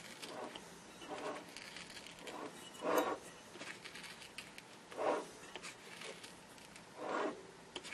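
Soft scratching and picking as the old glue bead and rotted foam surround are peeled off a loudspeaker's frame by fingers and a thin tool: a few short scrapes, roughly every two seconds, with faint ticks between them.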